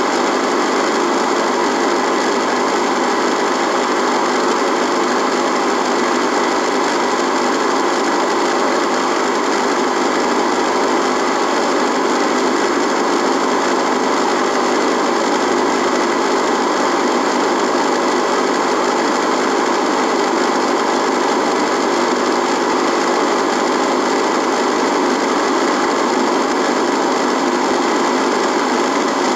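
Radio buzzing: a loud, steady buzz of static that does not change, with a few faint steady tones in it.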